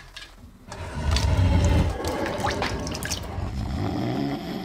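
Water sloshing and swirling in a plastic bowl around a water-soluble toy wrapper that is dissolving. The rush starts about a second in, is loudest early with a low rumble, then runs on steadily and cuts off suddenly.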